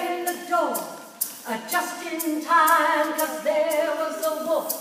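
A woman singing, with held notes that slide in pitch, over a steady beat of sharp taps about twice a second.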